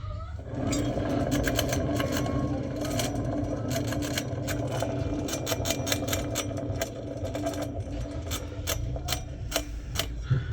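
Samsung washing machine drum turning with a steady grinding hum and a dense, irregular rattle of clicks, starting about half a second in and easing off near the end: the noise of faulty drum bearings.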